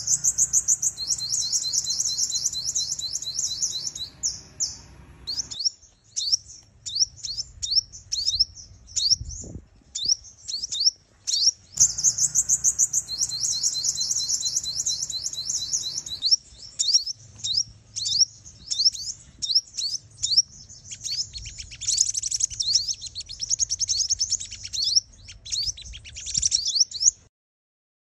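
Sunbird calls, given as a female's lure call that excites males: fast, high-pitched trilled chirps in dense runs alternating with single quick down-slurred notes, cutting off abruptly near the end.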